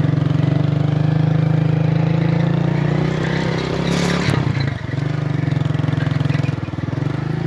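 Motorcycle engine running steadily under way, with a brief dip in the engine note and a short rattle about four seconds in.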